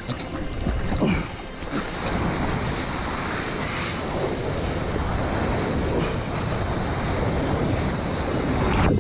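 Surf water rushing and splashing close against a camera held at the waterline as a bodyboard rides a wave, with wind buffeting the microphone.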